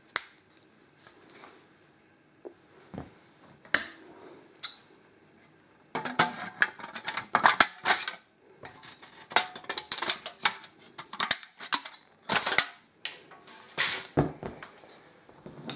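Thin aluminium sheet from a beer can being cut and handled: a few scattered sharp clicks, then from about six seconds in a dense run of crisp clicks and crinkling.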